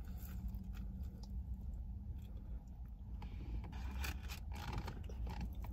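Food packaging rustling, crinkling and scraping as it is handled, in a run of crackly bursts from about three seconds in, over a steady low hum inside a parked car.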